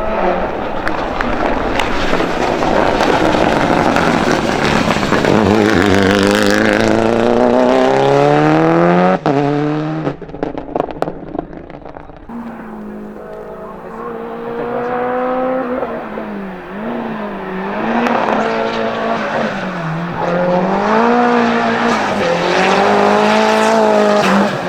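Race car engine at full throttle on a hillclimb, its pitch falling as it passes close, then a sudden break and a few seconds of exhaust crackle as the driver lifts off. The engine then revs up and down through gear changes and corners, growing louder again near the end before cutting off abruptly.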